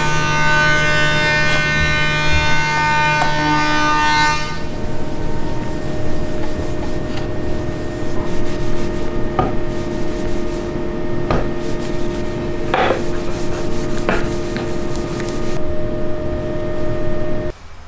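Pad and hand rubbing an oil finish into a wooden cutting board: a continuous dry rubbing of cloth on wood, with a few light knocks, over a steady hum. A denser many-toned drone sounds for the first few seconds, and the sound drops away sharply just before the end.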